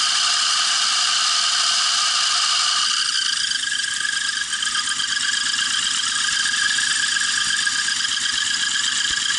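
Engine of a VAZ Zhiguli car running steadily, its sound shifting about three seconds in.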